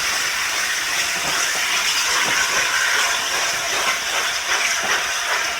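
Steam locomotive 60163 Tornado, a Peppercorn A1 Pacific, giving off a steady hiss of steam.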